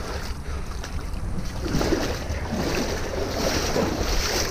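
Water splashing and running off a jet ski and its trailer as they are towed out of the water up a boat ramp, over a steady low rumble with wind on the microphone.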